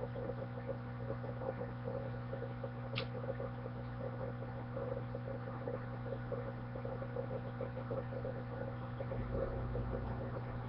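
Steady low electrical hum, with a single sharp click about three seconds in.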